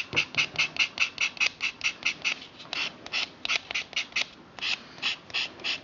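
A nail file block scraping rapidly back and forth across a natural fingernail, about five short strokes a second with a couple of brief pauses, filing off the dead nail layers to prepare it for a patch.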